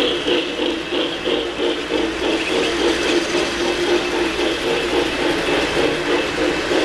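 O-gauge model trains running on three-rail track: a steady clatter of wheels over the rails with the whir of motors and gears as a passenger train goes past.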